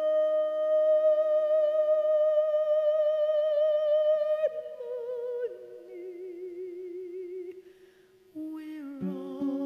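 A woman's voice sings a long wordless held note with vibrato over fading acoustic guitar notes, then steps down to lower held notes that die away almost to nothing. A plucked guitar chord and the voice come back in near the end.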